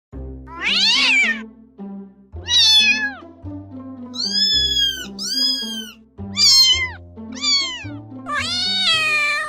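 Kittens and cats meowing, about seven separate meows, some rising and falling, two of them very high and arched, over background music with a stepping bass line.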